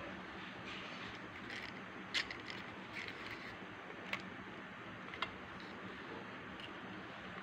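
Handling noise from a small handmade toy tractor model turned over in the hand: a few light clicks and knocks of its metal and plastic parts with some rustling, the sharpest about two seconds in, over a steady background hiss.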